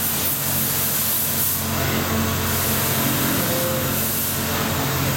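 CNC milling machine cutting SKD61 tool steel with a POKOLM milling cutter: a steady machine hum under a high hiss that swells and fades several times.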